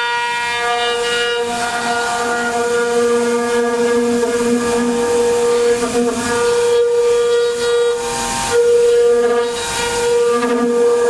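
HITECO spindle of a 5-axis CNC router whining at a steady high pitch while its bit carves wood. A hiss of cutting comes and goes with the tool's passes, louder in the second half.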